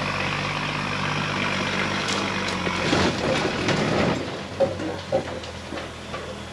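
Truck engine running steadily while towing. About two to five seconds in, tree branches scrape and crackle against a steel dump bed, with a couple of sharp knocks as the bed strikes the tree.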